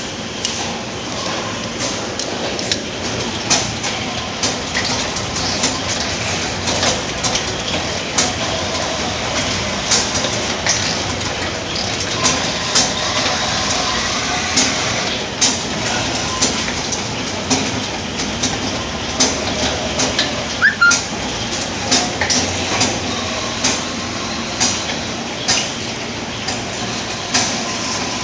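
Stainless-steel bottle filling machine running: a steady mechanical rattle and hum with frequent sharp clacks, about one or two a second.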